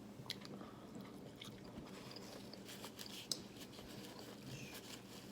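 Faint chewing and small mouth clicks from someone eating fried chicken, with a scatter of short ticks spread through.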